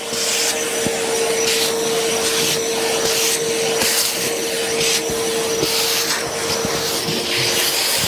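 Philips Performer Ultimate bagged canister vacuum cleaner running with a steady motor whine. Its bare nozzle is drawn over a fabric sofa cushion, and the suction hiss swells and fades with each stroke, about once a second.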